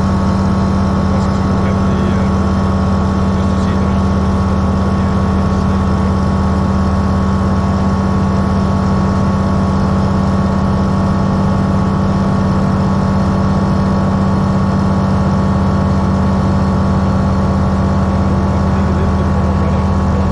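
Cockpit drone of a Grob G109B motor glider's 100 hp Rotax 912 flat-four engine and constant-speed propeller, running steadily at constant power in flight, heard from inside the cabin.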